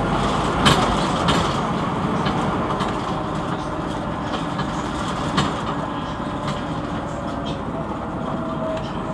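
Cabin noise of a Scania NewOmnicity city bus on the move: steady engine and road noise with rattles and knocks from the body and fittings. The loudest knocks come a little under a second in and about five seconds in.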